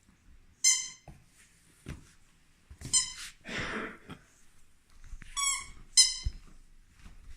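Squeaky toy squeezed by Saarloos wolfdog puppies at play, squeaking four times in short high squeaks, with a brief rustle after the second squeak.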